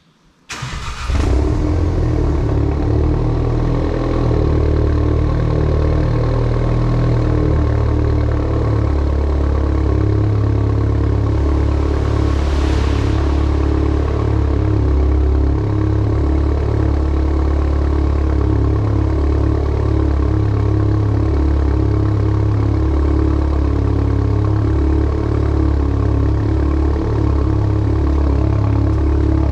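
2014 Volkswagen Golf R's turbocharged 2.0-litre four-cylinder with a Remus exhaust cold-starting: the starter cranks and the engine catches within the first second, then idles steadily and loudly, echoing off the concrete of an underground garage. A brief hiss rises and fades about 13 seconds in.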